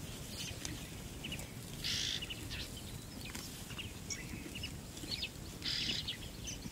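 Red-billed oxpeckers calling: many short, high chirps scattered throughout, with two brief hissing calls, one about two seconds in and one near the end.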